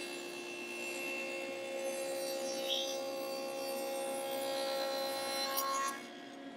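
Table saw with a stacked dado head cutting a 3/4-inch-wide dado through plywood as a test cut: a steady whine under the hiss of the cut. About six seconds in the cut ends and the sound drops sharply, leaving the saw running more quietly.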